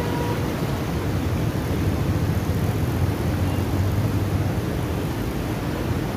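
Steady rush and rumble of white water pouring through a dam's sluices and churning past a concrete weir.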